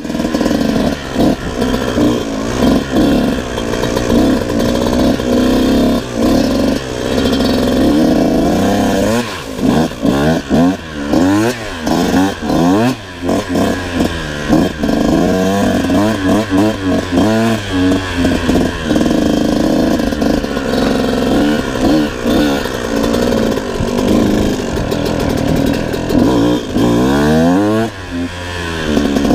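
Kawasaki KX125 two-stroke dirt bike engine being ridden hard, revving up and falling back again and again as the throttle is opened and closed through the gears, with short dips where the throttle is chopped.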